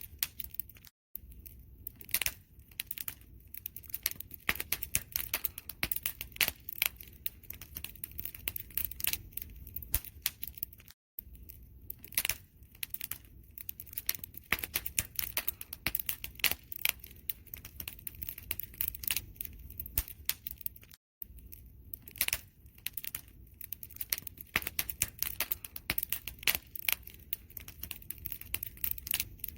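Campfire crackling: dense, irregular pops and snaps of burning wood over a steady low rumble of flame. The sound cuts out completely for a moment three times, about ten seconds apart.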